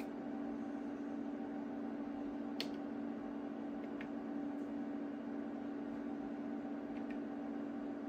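Steady hum of the cooling fans of a rack of HP bench test instruments, with a few light clicks of front-panel keys being pressed.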